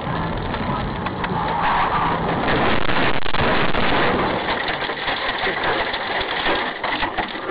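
Car engine and road noise: a dense, steady rush with many small knocks and crackles.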